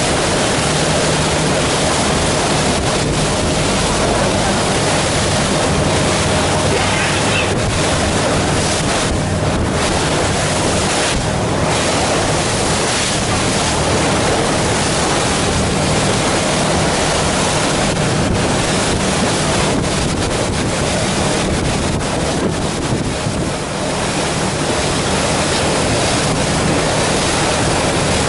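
Steady rush of water and wind buffeting the microphone aboard a moving river passenger boat, with the low, even drone of the boat's engine underneath.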